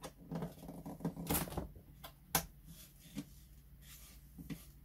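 Plastic clicks and taps as a disco-ball light's suction-cup mount is pressed onto window glass and adjusted: a handful of sharp, separate clicks.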